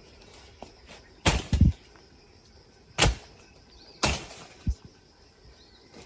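Five heavy thuds or strikes at irregular spacing: a quick pair about a second in, a single strike near the middle, then another followed by a lighter one.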